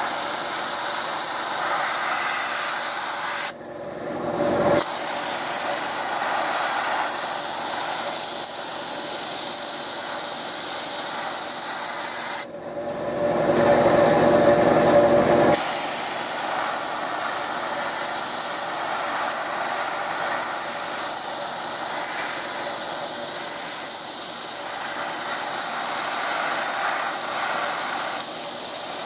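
Harbor Freight 20 oz gravity-feed sandblast gun blasting sand with compressed air onto a painted metal strip: a steady, even hiss, with the gun working well after its modification. The hiss cuts out briefly about three and a half seconds in. A little before the middle it gives way for about three seconds to a louder, deeper rush.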